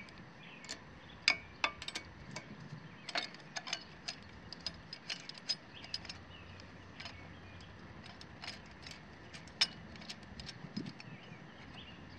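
Irregular small metallic clicks and taps as hands and a tool work around the carburetor and throttle linkage of a small lawn-equipment engine. The clicks come a few to the second at most, with no steady rhythm.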